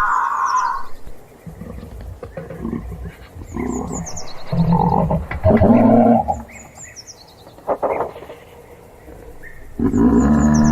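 Giraffe humming: low, droning, snore-like calls in several bouts of one to three seconds, loudest near the middle and again near the end.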